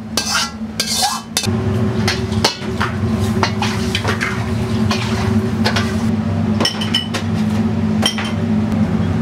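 Ceramic bowls and plates clinking and knocking against trays and the counter in a busy ramen kitchen, over a steady low hum of kitchen equipment. A few of the clinks ring briefly, between about seven and eight seconds in.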